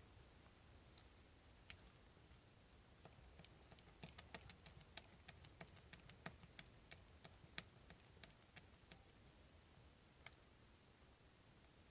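Faint clicks and taps of a spatula against the sides of a slow-cooker crock as thick hot-process soap batter is stirred, coming several a second from about four to nine seconds in.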